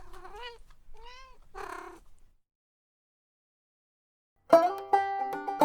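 A cat meowing three times in quick succession, followed by a pause. Banjo music starts up near the end.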